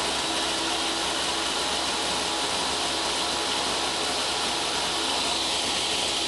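Total TS5152542 10-inch table saw's brushed motor and blade running free without load at about 4,200 rpm: a steady, high-pitched whir.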